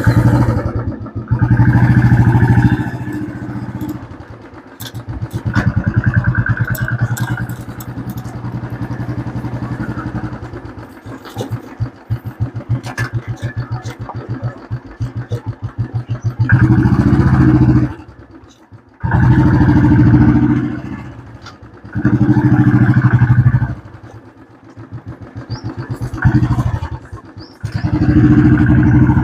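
Royal Enfield Classic 350 single-cylinder engine running, revved in repeated surges of a second or two that drop back to a lower steady beat in between. This is a test after the front-end repair; no khat-khat knock from the steering head is heard, now that its rusted, grease-starved ball bearings have been replaced.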